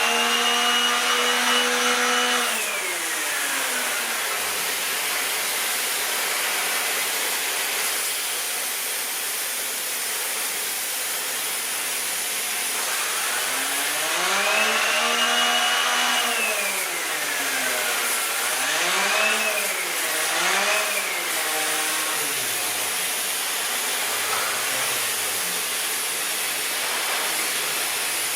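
Shark NZ801UK upright vacuum cleaner running through its hose with the pet hair tool on, a spinning head with a silicone blade. There is a steady rush of air with a whining tone over it that slides down and up in pitch several times.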